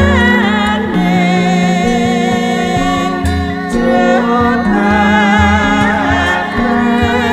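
Javanese gamelan ensemble playing: bronze metallophones and gongs sound held, ringing tones, with deep strokes recurring every second or two and a wavering melody line above them.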